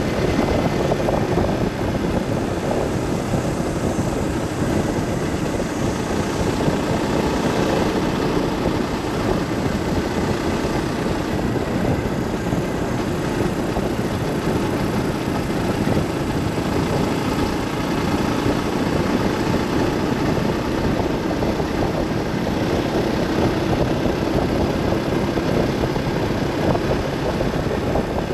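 Steady driving noise from a vehicle on the road: engine, tyre and wind noise blending into a constant rumble and hiss.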